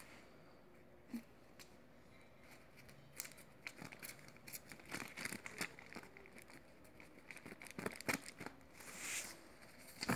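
Paper banknotes being counted by hand off a thick stack, each note flicked with a crisp paper snap. A few snaps at first, then a quick run of them from about three seconds in, with a brief rustle of the stack near the end.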